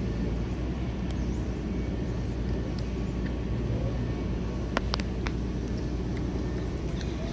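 Steady low outdoor rumble, with a few sharp clicks about five seconds in.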